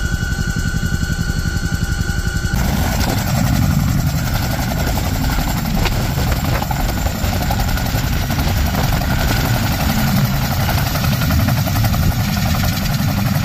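CH-47 Chinook tandem-rotor helicopter running on the ground, its twin turboshaft engines and rotors making a loud, steady, pulsing drone. About two and a half seconds in, the sound cuts abruptly from a steadier drone with fixed high tones to this one.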